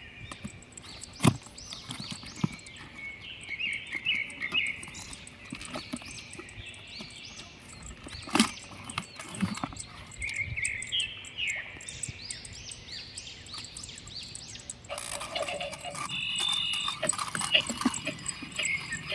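Birds chirping in quick runs of short repeated calls, with a few sharp clicks. Background music comes in about three-quarters of the way through.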